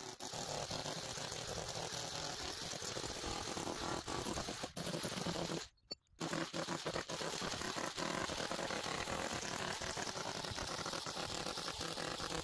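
Chiselling an old concrete-and-brick-rubble foundation: a dense run of sharp chipping strikes with scraping as the crumbly concrete breaks away. There is a brief break just before the middle.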